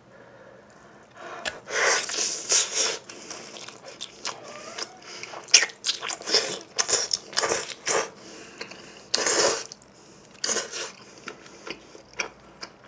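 Close-miked mukbang eating of a cheese pizza: biting and chewing with wet mouth clicks, starting about a second and a half in, broken by a few louder hissing bursts.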